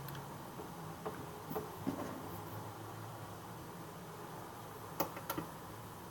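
Small metallic clicks and light taps as fingers handle screws against the amplifier's thin metal cover: a few soft ticks in the first two seconds and two sharper clicks about five seconds in, over a faint steady hum.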